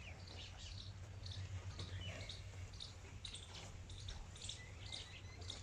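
Small birds chirping faintly, short high chirps and a few quick falling notes at two or three a second, over a steady low hum.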